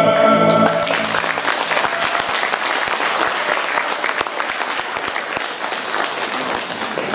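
Dance music ends on a held final chord just under a second in, then an audience applauds steadily, many hands clapping together.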